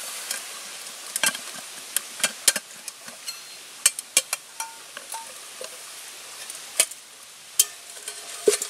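Stainless steel camp cook pots clinking and knocking as they are handled and unpacked, a few knocks ringing briefly, over the faint crackle and hiss of a small twig-stove fire.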